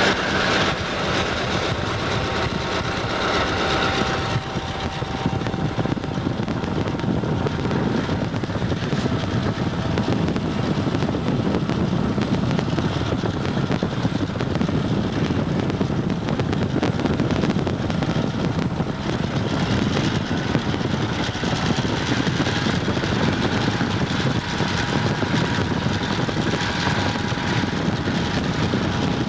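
Diesel locomotives working steadily as they push a railroad wedge snowplow through snow, heard as one loud continuous drone mixed with the rush of the pacing car's road and wind noise. A brighter hiss sits over it for the first few seconds.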